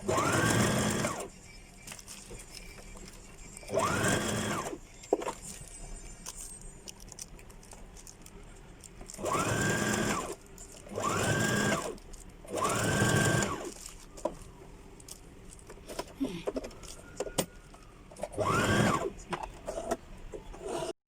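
Electric sewing machine stitching in six short runs, each rising in speed and then slowing back down, three of them close together in the middle.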